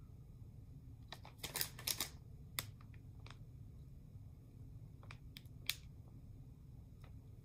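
Faint crinkles and clicks of a plastic soft-bait package being handled and turned over, scattered irregularly over a low steady room hum.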